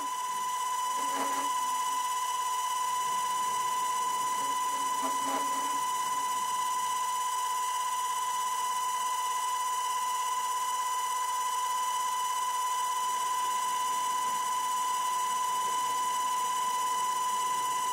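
180-watt servo motor spinning a small DIY lathe's chuck at steady speed during a light facing cut in aluminium: a constant high-pitched whine, one steady tone with fainter higher overtones.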